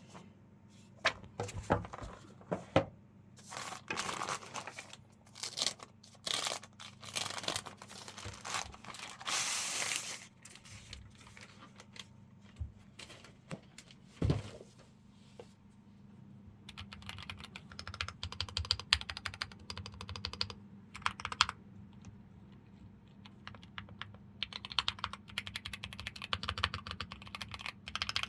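Typing on a Keychron Q6 HE keyboard with Gateron double-rail magnetic Hall effect switches, in fast runs of key clicks over the second half. Long rustling or scraping sounds fill about the first ten seconds.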